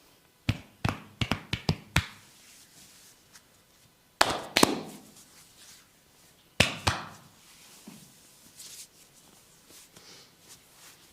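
Sharp slapping and cracking strokes from a barber's hands during a head massage: a quick run of about seven crisp strokes, then two louder strikes near the middle and two more about two-thirds of the way in.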